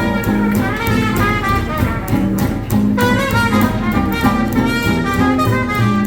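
Small hot-jazz swing band playing an instrumental passage, brass in the lead over a steady walking bass and rhythm section.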